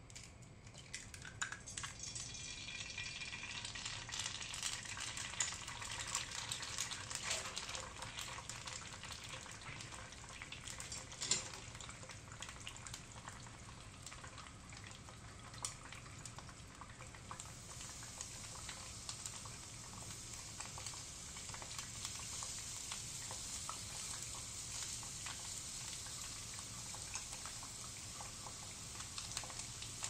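An egg frying in oil in a cast-iron skillet: a sizzle that starts about a second in and carries on steadily, with scattered spits and pops.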